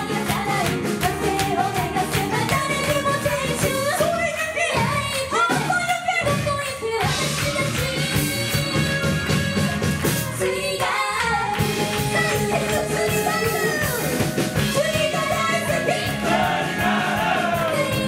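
Live band playing an upbeat pop-rock song, with women singing lead into microphones over drum kit, electric guitar and bass.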